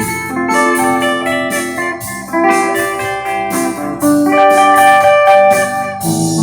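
Electric guitar played with a clean tone, a melodic line of picked, sustained notes that change every half second or so.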